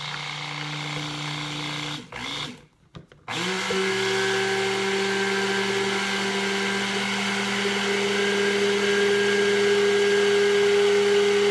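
Proctor Silex handheld immersion blender running in a plastic pitcher of liquid, a steady motor hum. It stops briefly about two seconds in, then starts again at a higher pitch and runs on steadily, slowly growing louder.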